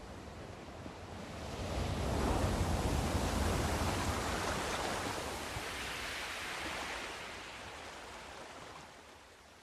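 Sea surf: a wave rolls in and breaks about two seconds in, then its wash slowly dies away.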